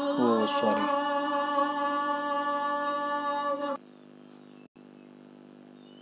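A voice holding one long, steady hummed note for about four seconds, which cuts off suddenly near the end. A faint steady hum remains after it.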